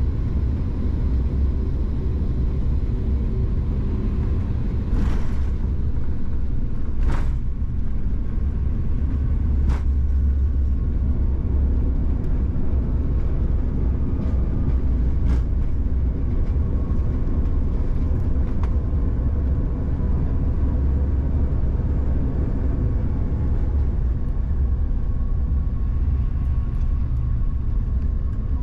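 Cabin noise of a Bombardier CRJ-700 regional jet landing and rolling out on the runway: a steady, heavy low rumble, with a few sharp knocks about five and seven seconds in.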